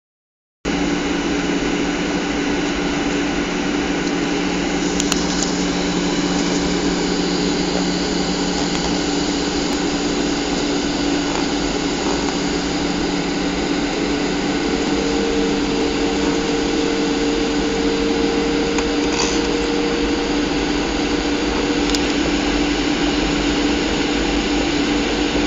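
Steady rushing cabin noise of a Boeing 737's jet engines and airflow, heard from a seat over the wing on approach, with a steady hum; about halfway through a lower hum fades and a higher hum joins.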